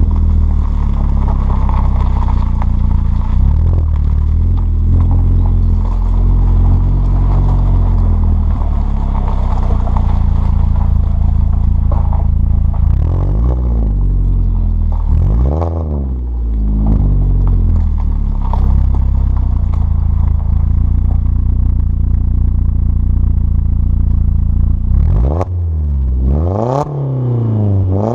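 Alfa Romeo Brera S 2.2's four-cylinder engine heard at the tailpipes through a stainless cat-back exhaust with the centre silencer removed, droning steadily while cruising. Revs rise and fall a couple of times around the middle, with tyres crunching on gravel, and near the end a few quick revs rise and drop back.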